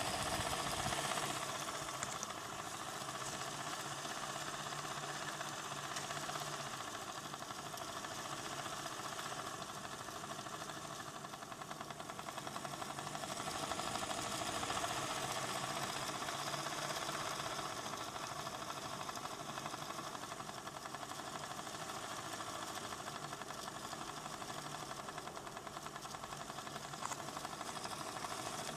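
ADDA computer fan running with bad bearings: a steady whir with a rough, rattling buzz from the worn bearings, rising and easing slightly in level, then cutting off suddenly at the end.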